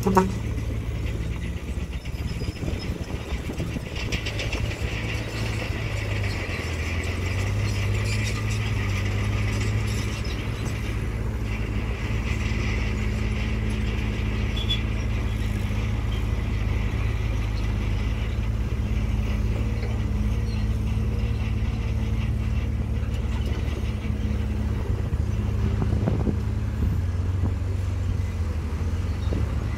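Diesel engine of a 5-ton dump truck running steadily while its hydraulic hoist raises the tipper bed to dump a load of soil. A brief sharp knock right at the start.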